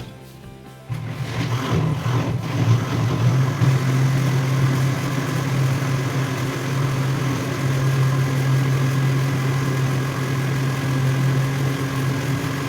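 Electric kitchen blender switched on about a second in and running steadily, its motor hum mixed with the churn of chopping eucalyptus, oregano and guava leaves.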